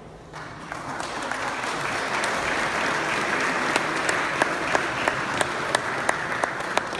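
Audience applauding: the clapping starts just after the start and swells over the first couple of seconds, then holds steady. Single sharper claps from people close by stand out in the second half.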